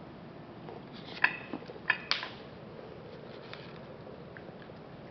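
Coton de Tulear puppy eating dry kibble from a dish on a plate, with three sharp clicks about a second to two seconds in and fainter chewing around them.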